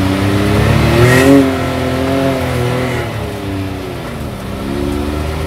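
Side-by-side UTV engine under throttle, revving up to a peak about a second in, easing off, then picking up again near the end.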